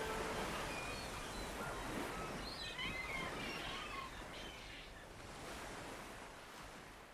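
Steady outdoor ambient noise slowly fading out, with a few faint small-bird chirps a few seconds in.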